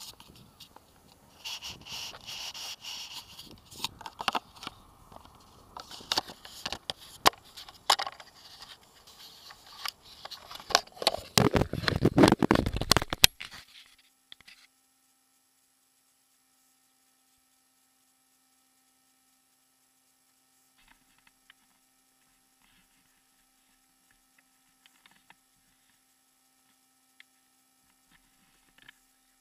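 Scraping, rubbing and knocking handling noise on an action camera's microphone, with sharp clicks and a louder rumble that stops suddenly a little after 13 seconds; then near silence with a few faint ticks.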